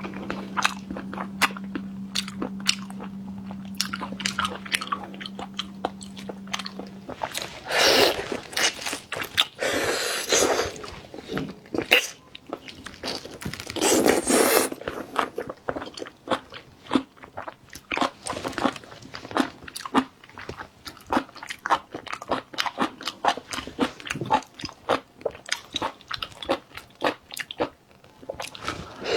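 Close-miked eating of shrimp: wet chewing and biting with crunching, many quick sharp clicks, and a few longer, louder noisy stretches about eight, ten and fourteen seconds in. A steady low hum sits underneath for the first seven seconds or so.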